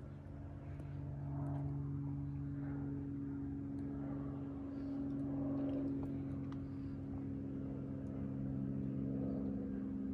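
A steady low mechanical hum, like a motor or engine running, with a few faint clicks.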